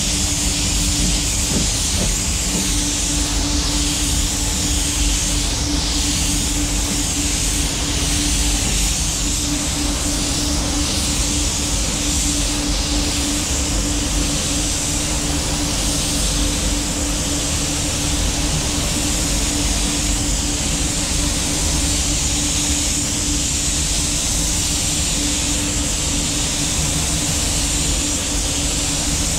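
Gravity-feed compressed-air spray gun hissing steadily as it atomises clear coat onto a car hood, over a steady low hum. The hiss swells and eases slightly with each pass.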